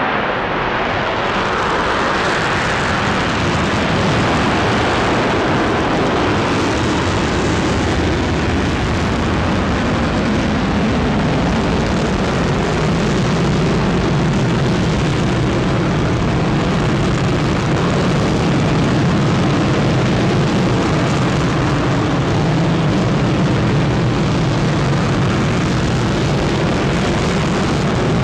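Loud, steady engine roar that holds unchanged throughout, with a brighter hiss for the first few seconds.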